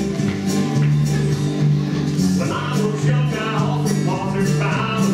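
A song playing with guitar, bass and a steady beat; a singing voice comes in about halfway through.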